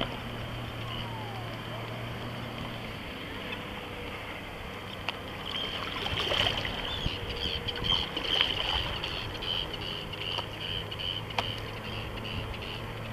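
Boat engine running steadily over wind and water noise on choppy sea. About six seconds in the noise grows louder and rougher, with a thin high whine running through it.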